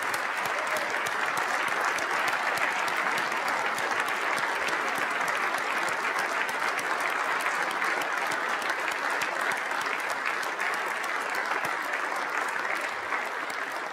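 A large audience applauding steadily, a dense mass of clapping hands that dies away near the end.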